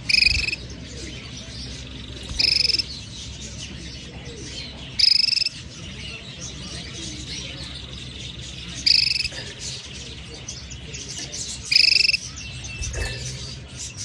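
Canary calls: a short, even call repeated five times, about every two to three seconds, over faint high chirping and twittering.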